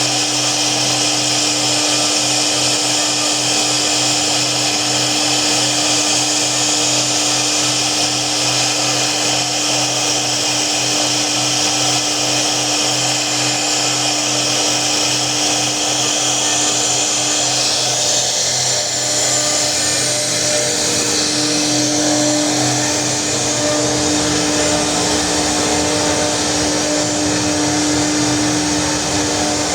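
CNC router spindle running continuously under cutting load, a steady whine over a hiss of cutting. The tone and noise shift about two thirds of the way through, as the load changes.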